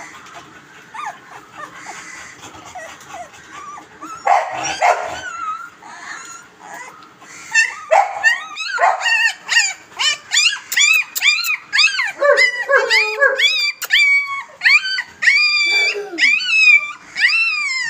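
Very young European Doberman puppies whimpering and crying: faint whines at first, then from about eight seconds in a rapid run of high, arching squeals, about three a second.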